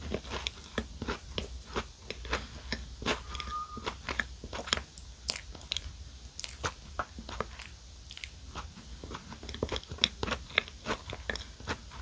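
Biting and chewing a mini chocolate cupcake topped with a Crown Sando sandwich biscuit, a quick irregular run of crisp crunches from the biscuit layer.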